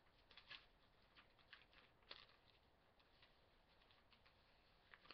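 Near silence with faint, scattered clicks and rustles of binder pages being handled and turned; the sharpest click comes about two seconds in.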